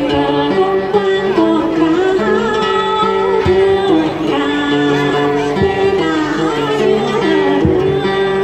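A woman singing Tày then, accompanying herself on the đàn tính, a long-necked gourd lute, with steady plucked notes under a sung line that bends and glides in pitch.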